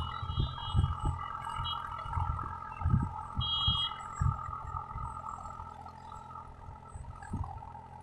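Distant tractor engine running steadily while it works a flooded paddy field, with low thumps of wind buffeting the microphone several times. A brief high-pitched tone sounds near the start and again about three and a half seconds in.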